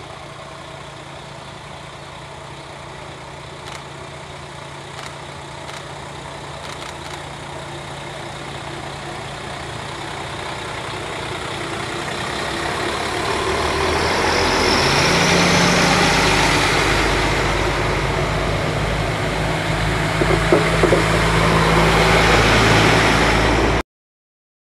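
Alstom Coradia LINT diesel railcar passing close by, its diesel engine steadily growing louder as the train draws level. The deep engine note becomes strong about two-thirds of the way through. The sound cuts off suddenly near the end.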